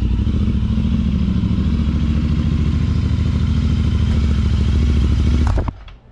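Royal Enfield 650 parallel-twin motorcycles with aftermarket exhausts (S&S full system, TEC 2-in-1, Zard slip-ons) running together at a steady engine speed. The sound cuts off about five and a half seconds in.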